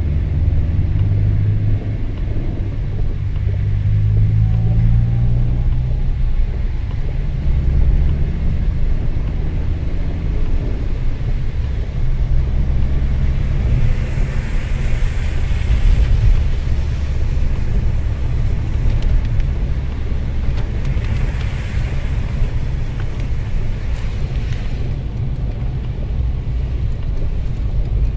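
Car driving on a rain-soaked road, heard from inside the cabin: steady engine and tyre rumble, with the engine pitch rising as it pulls away in the first few seconds. Two stretches of louder hiss from tyres on the wet road come around the middle and two-thirds of the way in.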